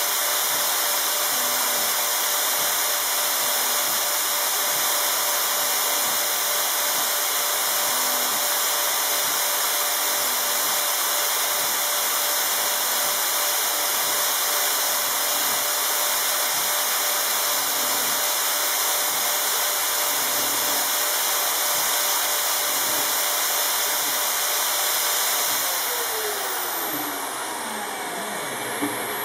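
High-speed electric motor on a home-built CNC machine running steadily with a loud, hissing whir, then switched off about four seconds before the end, its pitch falling as it spins down.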